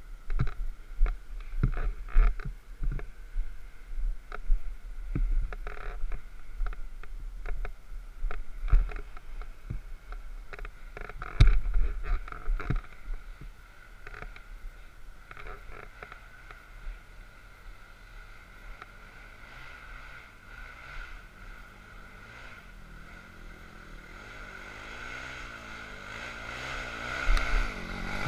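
Scattered knocks and clicks for the first half, then from about twenty seconds in a quad bike engine approaching, growing steadily louder as its revs rise and fall.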